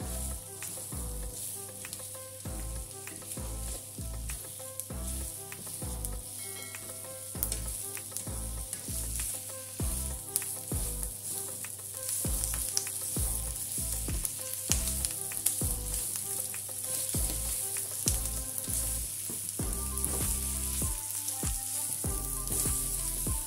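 Diced vegetables sizzling in oil in a frying pan while being stirred and turned with a slotted spatula, with frequent clicks and scrapes of the spatula against the pan. The sizzle grows louder about halfway through.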